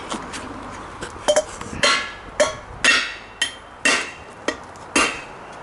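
Hammer blows on a steel dually wheel adapter corroded onto the rear hub, struck about twice a second, each with a short metallic ring, to break it loose.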